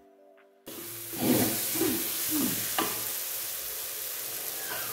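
Jackfruit frying in chili sambal, sizzling steadily in the pan while it is stirred, with a few scrapes of the utensil and a sharp clink about three seconds in. The sizzle comes in after a brief moment of near silence at the start.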